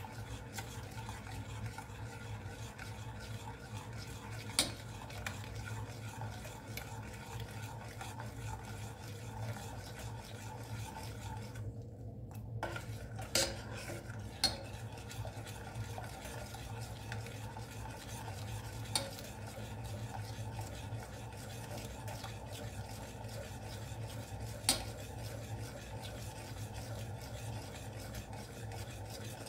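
A spoon stirring a thick, milky rice mixture in an aluminium pot, scraping and rubbing steadily. A handful of sharp clicks, about five, come spread through the stirring as the spoon knocks against the pot.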